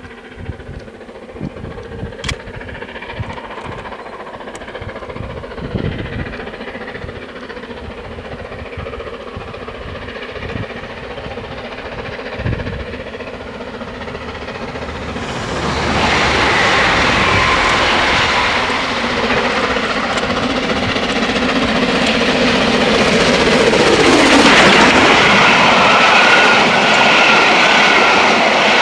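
Stanier Coronation Class Pacific steam locomotive 46233 Duchess of Sutherland and its train approaching at speed, the sound building slowly over the first half. It suddenly gets much louder a little past halfway as the train reaches and rushes past, and the coaches follow with wheels clattering over the rail joints.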